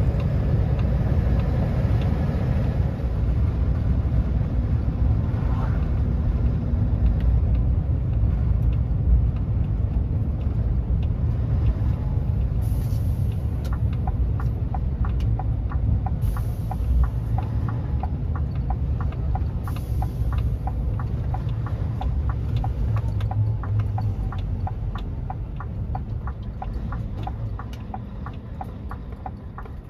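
Lorry engine and road noise heard from inside the cab while driving, a steady low rumble. From about halfway a regular ticking of the turn indicator joins in. The rumble eases off near the end as the lorry slows for a junction.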